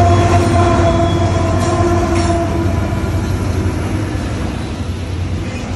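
Union Pacific diesel locomotive, running mid-train, passing close by with a steady engine drone that fades after about two and a half seconds. Double-stack container well cars follow, rolling by with a continuous rumble of wheels on rail.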